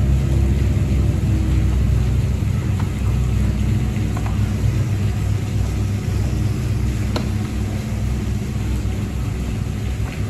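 A steady, loud low mechanical rumble with a faint hum in it, with a faint click about seven seconds in.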